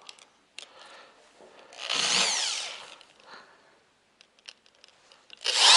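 Power drill driving ice studs (screws) into a dirt bike tire's rubber tread, in two short runs about three and a half seconds apart, with small clicks and knocks of handling between them.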